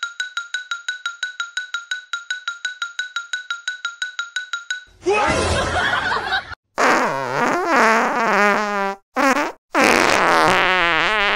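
A high beeping tone that pulses evenly about eight times a second and stops about five seconds in. It is followed by a series of fart-like sputtering noises whose pitch wobbles up and down, with two brief breaks.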